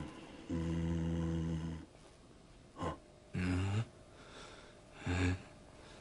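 Two men's low, wordless zombie grunts and groans traded back and forth, an attempt at conversation: one long drawn-out groan about half a second in, then three short grunts in the second half.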